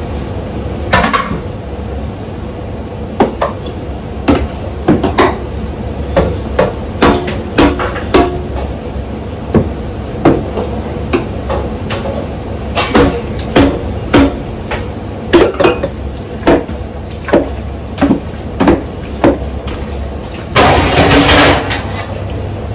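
Irregular knocks and clatter of cooking utensils against a stainless-steel stockpot and metal trays, about one or two a second, over a steady low hum. A louder rattling clatter lasts about a second near the end.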